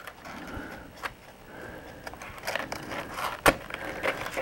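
Pink foam-board retaining-wall panels being pressed and slid into place by hand: soft rubbing and scraping of foam, with a few sharp clicks, the loudest about three and a half seconds in.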